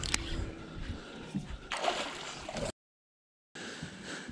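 Lake water sloshing and splashing as a landing net lifts a hooked bass out beside the boat, loudest about two seconds in. The sound then cuts out completely for under a second.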